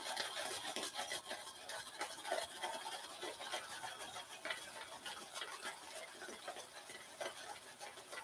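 A boar-bristle shaving brush swirled quickly in a lather bowl, building shaving soap into lather: a continuous wet, bristly scrubbing peppered with fine crackles.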